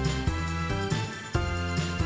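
Cheerful children's background music with a steady beat and jingling bells.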